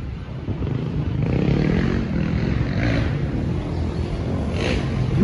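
Dirt bike engines running on the course, their note rising and falling with the throttle over a steady low rumble.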